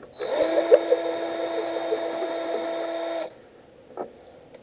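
Power drill running free at a steady speed: it spins back up just after the start, whines steadily for about three seconds, then stops abruptly. A single light knock follows near the end.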